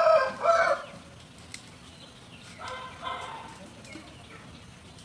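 Chickens calling: a loud, drawn-out call in the first second and a fainter one about three seconds in.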